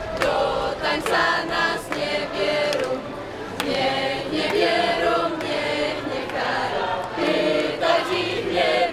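A group of costumed folk dancers singing a folk song together in chorus as they march.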